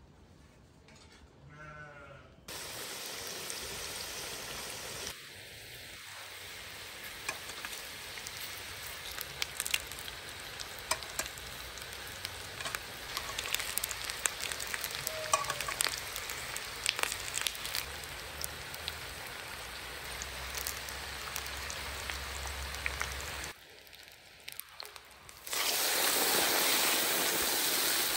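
Oil sizzling and crackling in a cast-iron kazan as lyulya kebabs on skewers fry over potatoes. Near the end comes a louder, steady hiss as steam rises from the pot.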